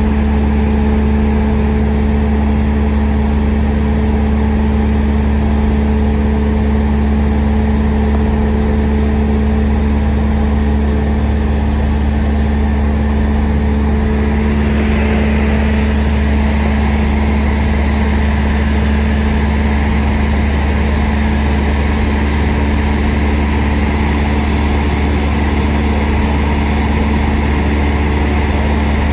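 Cessna light aircraft's piston engine and propeller heard from inside the cabin in cruise flight: a loud, steady drone with a constant low hum. A higher hiss joins about halfway through.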